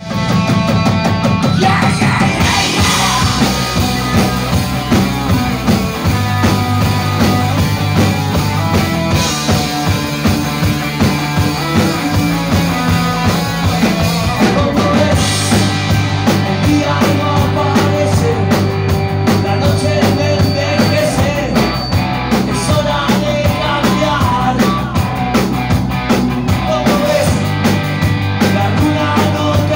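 Live rock band playing loud, with distorted electric guitars and a drum kit and a singer's voice on top.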